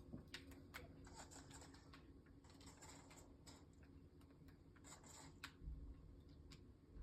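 Faint scattered light clicks and a few short rustling scrapes, like small hard objects being handled.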